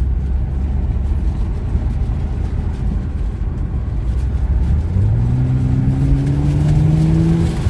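Audi S5's supercharged V6 engine running steadily under way, then accelerating from about five seconds in, its note climbing steadily in pitch.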